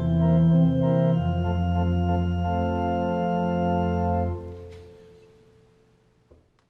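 Organ playing the final chords of a piece. The last chord is released about four seconds in and dies away over about two seconds, followed by a faint click near the end.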